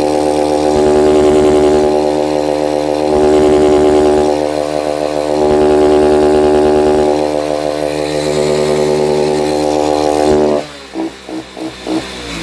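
Shineray 50cc motorcycle engine held wide open at the rev cut, breathing through an improvised oil-can intake: the pitch stays steady while the level swells and dips. About ten and a half seconds in the throttle is dropped suddenly and the engine is blipped several times.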